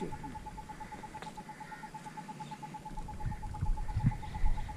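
Quiet rural outdoor ambience: a steady, rapid pulsing tone with a few faint bird chirps above it, joined by a low rumble from about three seconds in.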